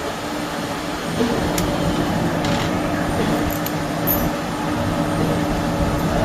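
Milling machine running with a steady hum, a few sharp clicks on top; it gets slightly louder about a second in.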